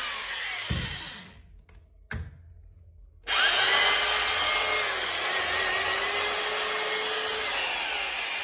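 Corded three-function rotary hammer drill running with no load. It is switched off about a second in and its motor whine falls away. After a gap with two clicks, it is switched back on about three seconds in, spins up, and runs steadily.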